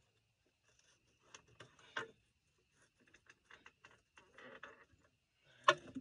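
Scattered light clicks and knocks of a floor jack under a backhoe transmission being shifted and rolled back, with a sharper knock near the end. A faint steady high tone runs underneath.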